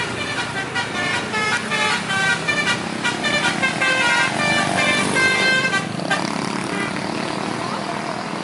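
Bus telolet horn playing a quick melody of short notes that change pitch, stopping about six seconds in, over a running engine and traffic noise.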